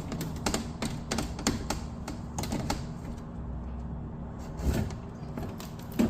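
Stove's metal front panel clicking and knocking against the range body as it is slid into place: a quick run of light clicks, then a couple of duller thumps near the end.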